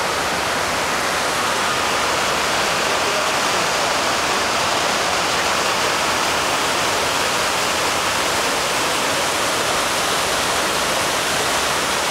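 Steady rush of water cascading down the walls of the 9/11 Memorial reflecting pool, a large square man-made waterfall, growing a little louder in the first couple of seconds.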